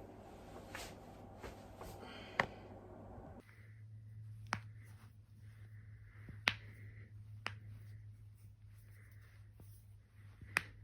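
Human joints cracking: a series of single sharp pops a second or two apart, as knuckles, elbows or the back are cracked. A steady low hum runs under them.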